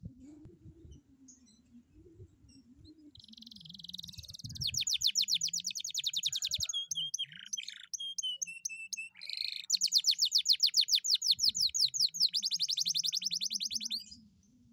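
Domestic canary singing one long song starting about three seconds in: a buzzy note, then rapid high trills, a few lower whistled notes in the middle, then another buzzy note and more rapid trills, the last run fastest, stopping shortly before the end.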